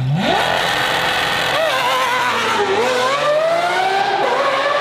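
Lamborghini engine revving up sharply from idle, then pulling hard under acceleration: the pitch wavers, dips about two-thirds of the way in, and climbs steadily again toward the end.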